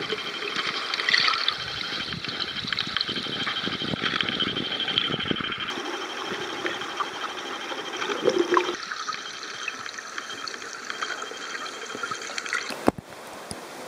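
Water and air bubbles rushing, heard underwater through a submerged camera, with a thin steady high tone running through it. A sharp knock comes near the end, after which the water noise is quieter.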